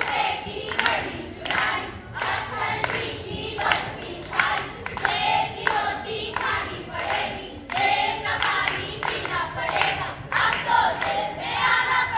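A group of children singing together in unison, with rhythmic hand claps keeping the beat.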